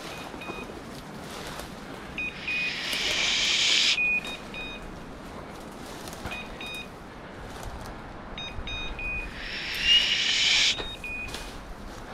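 A pointing dog's beeper collar sounds short high beeps in small groups about every two seconds, the signal that the dog is on point. Dry brush rustles and scrapes loudly twice, a second or so each time, as the hunter pushes through it.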